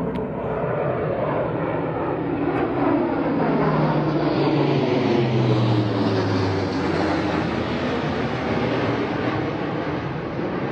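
Airbus A400M Atlas four-engine turboprop flying past. Its propeller drone drops in pitch as it goes by, over a broad rushing noise that is loudest a little past the middle.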